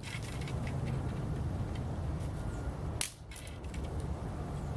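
Twigs and sticks being handled and laid onto a small campfire as it is built up, with faint scattered clicks and one sharp snap about three seconds in.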